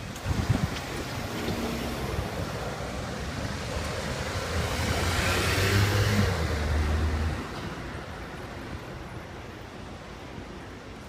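A motor vehicle passing by. Its sound builds to a peak about six seconds in, with a low engine hum that cuts off about seven and a half seconds in, then fades.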